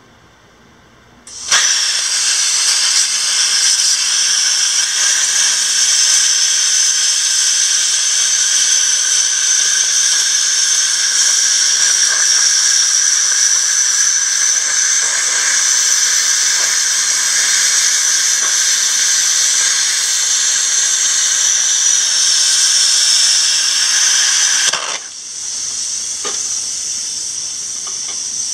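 Plasma cutter torch cutting through the end of a metal pipe: a loud, steady hiss starts about a second in and runs for about 23 seconds. Then the arc stops and a quieter hiss carries on.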